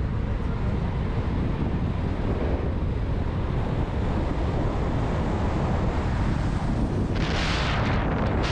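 Steady low rumble of a car on the move, with wind buffeting the microphone; a brief hissing rush about seven seconds in.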